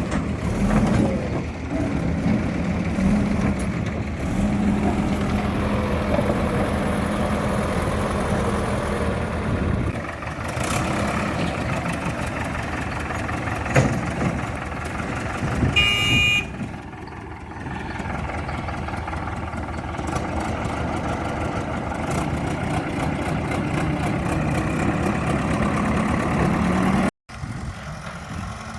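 JCB 3DX Super backhoe loader's diesel engine running as the machine works, its pitch stepping up and down. There is a sharp knock about fourteen seconds in, a brief high-pitched tone about two seconds later, and a momentary break in the sound near the end.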